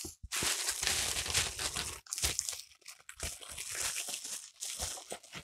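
Clear plastic packaging crinkling and rustling in the hands as it is pulled from a small cardboard box, in irregular bursts with short pauses.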